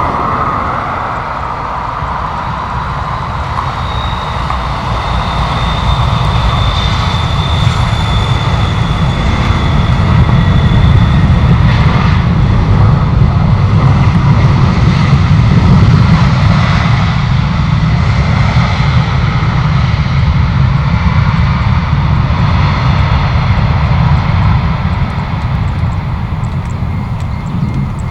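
Jet airliner engines on arrival. A deep rumble builds to its loudest about halfway through and then eases off, with a high whine heard for several seconds near the start.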